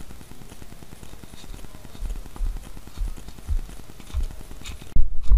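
Faint outdoor background with a few dull low thuds of footsteps on the grassy bank close to the microphone. About five seconds in it cuts abruptly to a loud low rumble.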